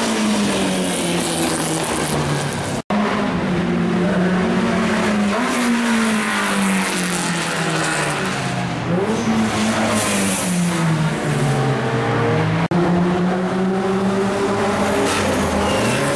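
Elfin historic open-wheel racing cars passing at speed one after another, engines revving hard, their pitch falling and rising again and again through gear changes. The sound drops out briefly twice.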